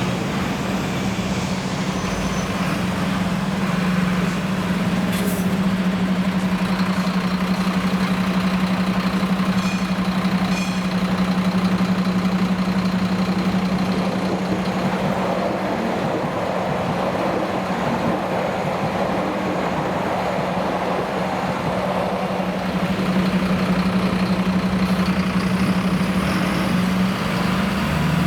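Engine of a heavy truck or site machine running steadily at a constant pitch, a low hum over general construction-site noise.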